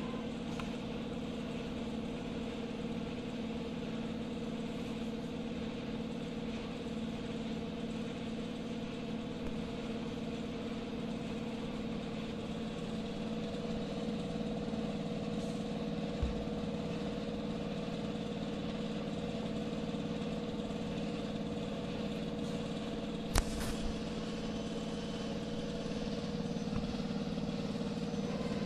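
Steady electric hum of workshop machinery, with several even tones, and one sharp click followed by a smaller one about four-fifths of the way through.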